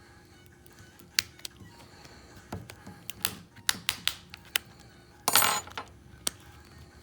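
Irregular sharp clicks and taps of small tools and plastic and metal parts while an LG G2 smartphone is being taken apart. A short scrape comes a little past five seconds in.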